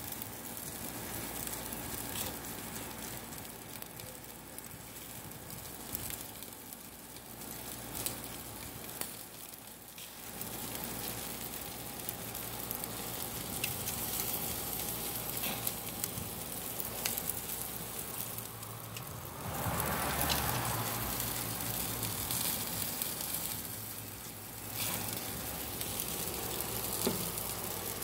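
Chicken thighs sizzling on the grates of a gas grill: a steady hiss with scattered small pops and crackles. It swells to a louder patch for a second or two about twenty seconds in.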